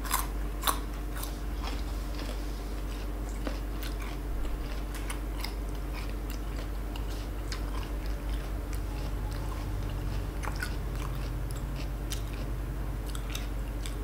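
A person chewing crisp unripe green fruit with the mouth close to the microphone: a steady run of small wet crunches and bites.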